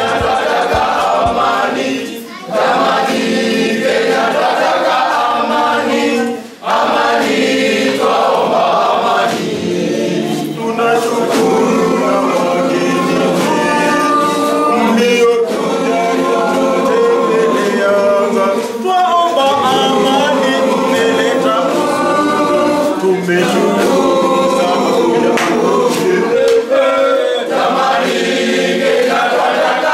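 A group of boys singing together a cappella, in phrases with a few short breaks between them.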